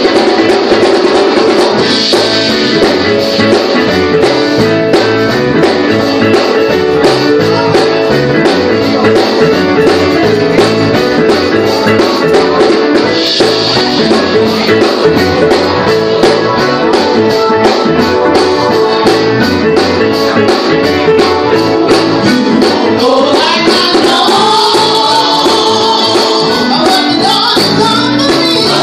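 Live gospel music: a band playing a steady beat with a women's vocal group singing over it. The voices come through more clearly about two-thirds of the way in.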